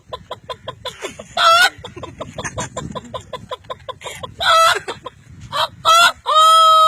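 A man imitating a rooster with his voice: a quick run of clucks broken by several short loud calls, ending in one long held crowing note near the end.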